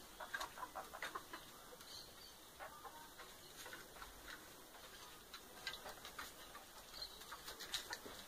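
Chickens clucking softly now and then among scattered light ticks and rustles, the birds pecking and scratching in straw.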